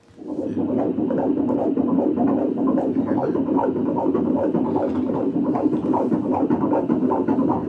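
Heartbeat of a 22-week fetus played through the ultrasound machine's Doppler speaker: a fast, steady, even pulse at about 155 beats a minute, starting just after the opening.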